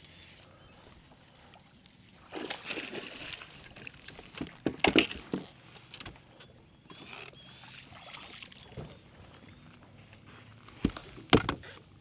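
Hooked largemouth bass splashing at the surface beside the boat as it is landed, with a few sharp knocks, the loudest about five seconds in and two more near the end.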